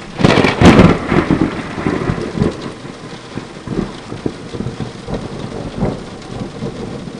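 Thunderclap with rain: a sharp crack of thunder in the first second, the loudest moment, breaks into a deep rumble that swells a few more times as it dies away. Steady rain hisses underneath.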